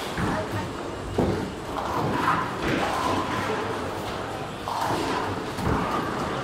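Bowling alley din: balls rolling and pins clattering on the lanes, with a few sharp thuds and crashes over background voices.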